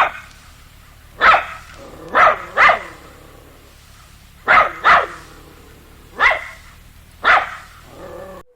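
A dog barking: about eight short, sharp barks, some coming in quick pairs.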